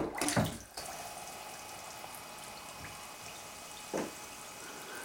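Homemade bath bomb splashing into a filled bathtub, with droplets falling back onto the water for about a second. A steady faint fizzing hiss follows as the bomb dissolves on the tub floor, with a single drip about four seconds in.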